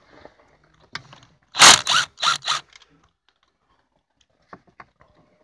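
Metal parts and tools handled on a manual transmission case: a click about a second in, then three short rattling scrapes close together, and a couple of faint clicks near the end.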